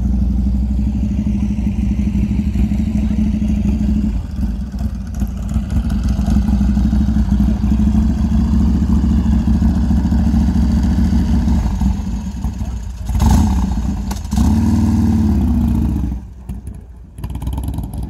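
V-twin cruiser motorcycle engine running with a steady low rumble, revved up twice near the end.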